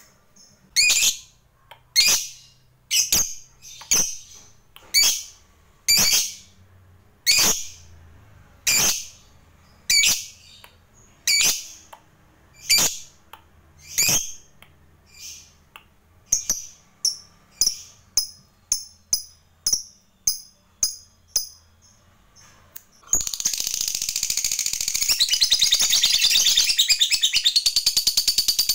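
Fischer's lovebird calling: loud, shrill single chirps about once a second, coming faster from about 16 s. At about 23 s they break into one long unbroken rapid chatter, the drawn-out 'ngekek panjang' song that lovebird keepers prize.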